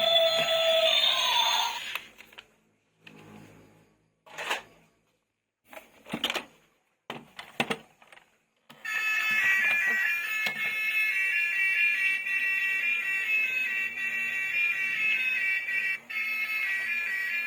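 Music until about two seconds in, then a few short clicks and rustles with quiet between. From about nine seconds, a battery-powered toy vehicle's electronic sound chip plays a fast, high, alarm-like beeping pattern that keeps going.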